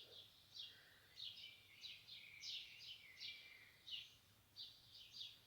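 Faint bird chirping: a string of short, high chirps repeated every half second or so over a quiet background.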